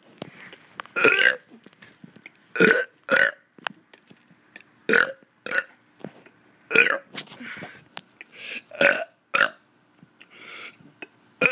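A child burping on purpose: a run of short, separate burps, about eight of them, one to two seconds apart.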